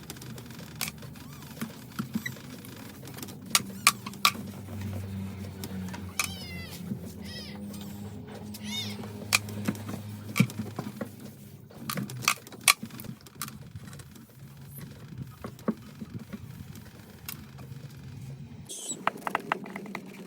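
Scattered clicks and light knocks of household items being handled, with two brief squeaks, over a steady low hum.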